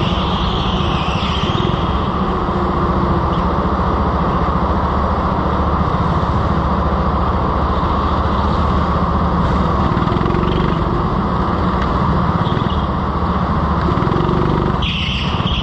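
Go-kart running steadily, heard from onboard: a constant motor hum with fast low pulsing and tyre and road noise.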